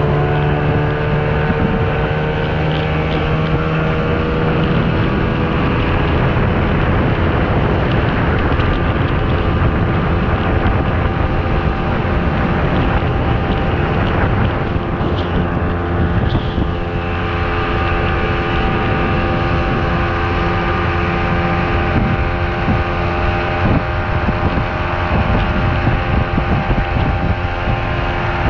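Outboard motor driving a small open boat, running steadily under way with wind buffeting the microphone and water rushing along the hull; the engine eases from planing speed to a slower cruise partway through.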